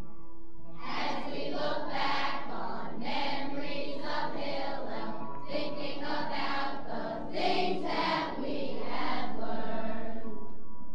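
A group of camp singers in chorus comes in about a second in over instrumental accompaniment, playing back from a 1979 vinyl record of camp songs.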